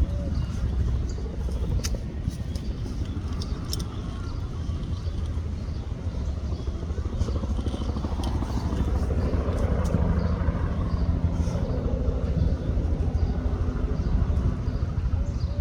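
Bell 206 helicopter running, its rotor and turbine engine making a steady low drone that grows a little louder about halfway through.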